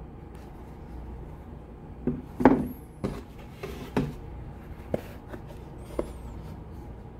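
Birkenstock Boston EVA foam clogs handled over a cardboard shoebox: about six light knocks and taps as the clogs are picked up and bumped against the box, the loudest about two and a half seconds in, with two faint high squeaks.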